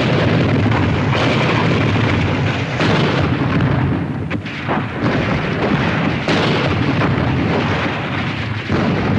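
Artillery barrage: shell explosions landing one after another, a new blast every one to three seconds over a continuous rumble.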